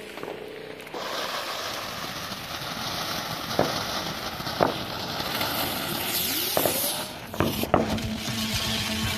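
Ground fountain firework: the lit fuse sputters briefly, then about a second in the fountain catches and hisses steadily as it sprays sparks, with a few sharp pops. Near the end it cuts to a bigger flare with a burst of crackling.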